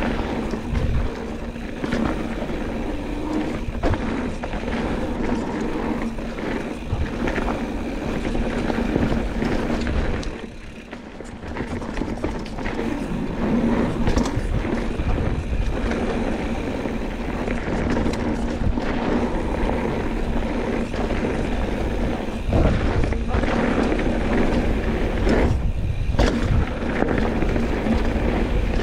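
Mountain bike rolling down a dirt singletrack: tyres rumbling over packed dirt and roots, with the bike rattling and knocking over bumps. The noise eases briefly about a third of the way in.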